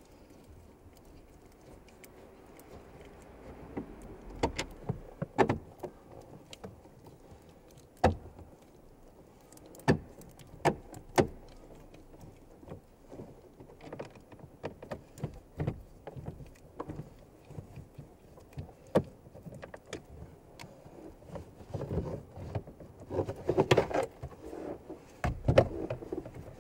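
Hand work at an Opel Zafira A's plastic glovebox: a screwdriver undoing its screws, with scattered clicks, taps and knocks of tool, screws and trim. The sounds come closer together near the end.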